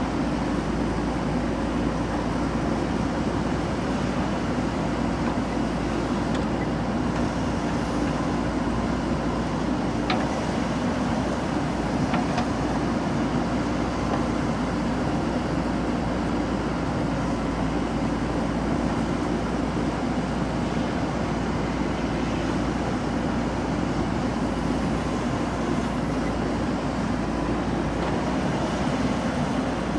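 JCB 3DX backhoe loader's diesel engine running at a steady speed.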